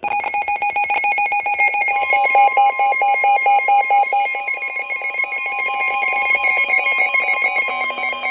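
Electronic emergency alert tones: a fast-pulsing, warbling alarm tone, joined about two seconds in by a steady high tone.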